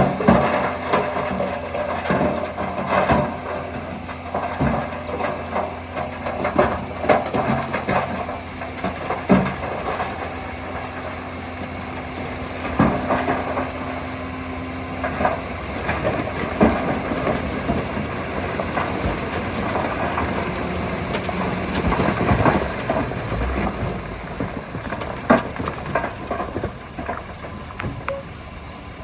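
Bulldozer diesel engine running steadily, with scattered clanks and knocks through the whole stretch.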